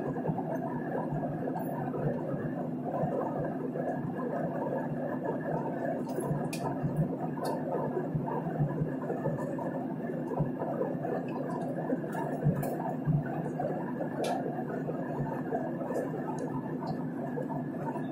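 Steady drone of an airliner's engines and rushing air, heard from inside the passenger cabin in flight.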